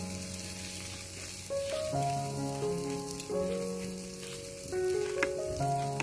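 Armored catfish sizzling on a wire rack over a charcoal grill, with background music playing held melody notes over it.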